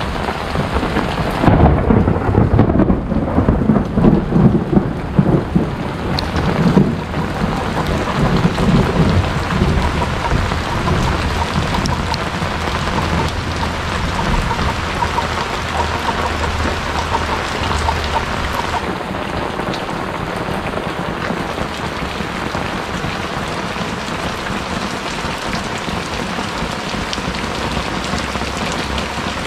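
Steady heavy rain falling on roofs and ground, with a long roll of thunder rumbling through the first third before it fades into the rain.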